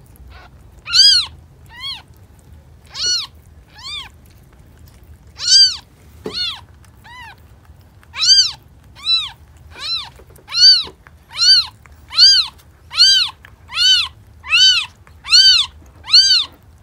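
Newborn kitten crying in short, high-pitched mews, each rising and falling in pitch. The cries are scattered at first, then come steadily at about one and a half a second from about halfway.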